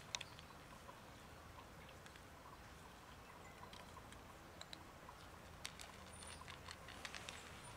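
Faint, sparse crunching clicks of two cats chewing dry kibble, over a low steady hiss; the clicks come a little more often near the end.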